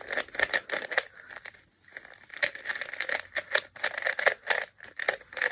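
3x3 Rubik's Cube being turned quickly by hand: rapid, irregular plastic clicks and clacks of the layers turning, with a brief pause about two seconds in.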